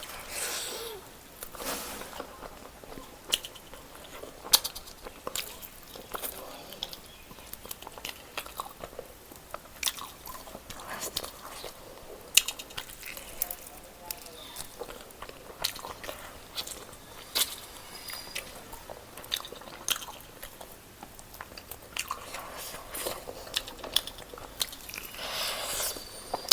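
A person biting and chewing food close to the microphone: irregular sharp mouth clicks and crunches, a few each second.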